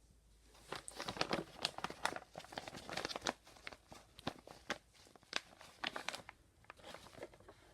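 Crinkling and rustling of packaging plastic with sharp clicks and knocks as a new upright vacuum is handled. It is busiest in the first six seconds, then thins out.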